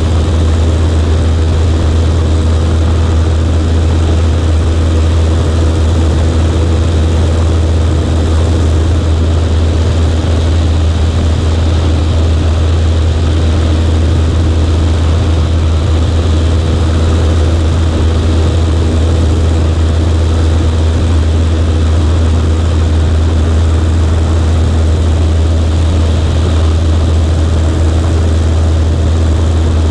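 Cessna 140A's piston engine and propeller running with a steady low drone, holding the same pitch and level throughout.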